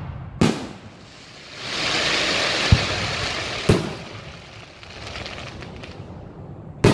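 Aerial fireworks shells bursting: four sudden booms and thumps, with a loud stretch of hissing noise between the first and third.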